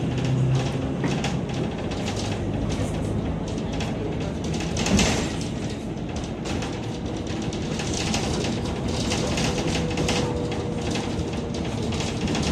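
Ride noise inside a moving city public-transport vehicle: a steady rumble with frequent rattling and clatter, and a brief louder jolt about five seconds in.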